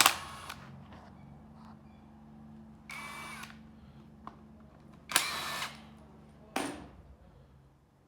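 Four short bursts of machine noise, the longest about half a second, over a low steady hum that stops near the end.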